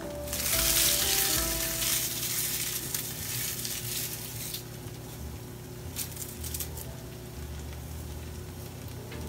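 Food sizzling in a hot frying pan. It comes in suddenly and loud just after the start, then dies down over about four seconds to a quieter steady frying, with a few light clicks near the middle.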